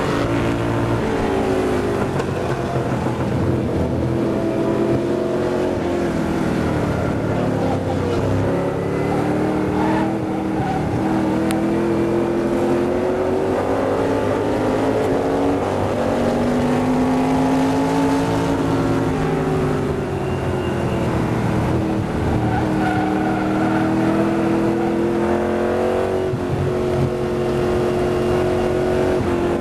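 McLaren M1B's V8 engine heard from the cockpit at racing speed, its pitch climbing under acceleration and dropping back several times with braking and gear changes.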